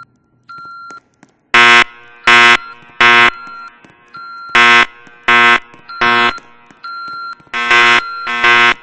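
Fire alarm horns sounding the temporal-three evacuation signal: loud buzzing blasts of about half a second each, in groups of three with a pause between groups. The first group starts about a second and a half in, and there are two full groups and the start of a third. A fainter high beeping tone sounds in the gaps between blasts.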